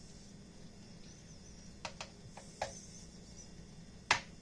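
Rice and mixed vegetables sizzling faintly in a frying pan, with a soft crackle, and a few sharp clicks of a utensil against the pan. The loudest click comes near the end.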